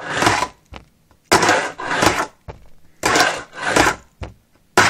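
Fingerboard wheels rolling back and forth across a metal double quarter-pipe ramp: repeated rolling passes about a second long, each one swelling and fading, with short pauses between them.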